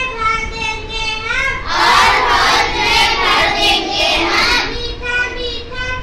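Children singing a Hindi poem in sing-song chant, one child's voice leading. From about two seconds in to nearly five seconds in, a group of voices sings along and the sound grows fuller.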